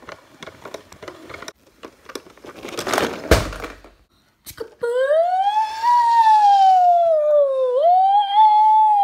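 Electronic siren of a battery-powered toy police car, a single wailing tone that slowly rises, falls and rises again, starting about five seconds in. Before it come clicks and rustling from plastic toys being handled, with a short rushing burst around three seconds in.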